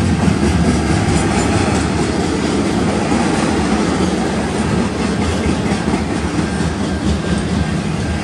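Intermodal freight cars loaded with double-stacked containers and highway trailers rolling past at speed: a loud, steady rumble of steel wheels on the rails.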